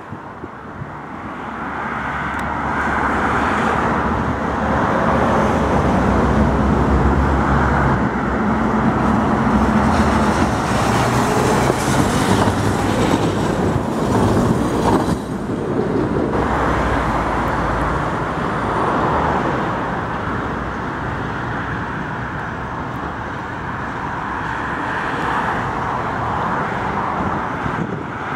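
Tatra T3SU two-car tram train running on steel rails, growing louder as it approaches. It is loudest as it passes beneath about halfway through, with a hiss of wheels on rail, then fades. Road traffic runs alongside.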